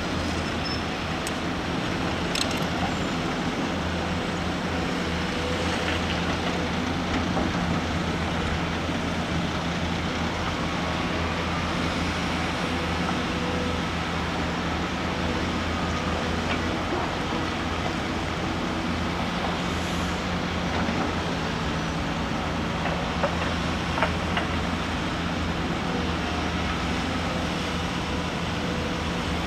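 Volvo EC210B excavator's diesel engine running steadily while the machine digs, with a couple of short sharp knocks about three-quarters of the way through.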